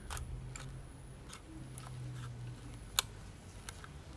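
Film rewind knob of a Kodak Retina folding camera being turned by hand: a run of small, irregular clicks and ticks, with one sharper click about three seconds in, as the film is wound back into its cassette.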